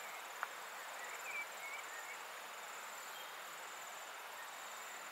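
Steady high-pitched, finely pulsing insect trill, with a few faint short chirps about a second in and a single sharp click near the start.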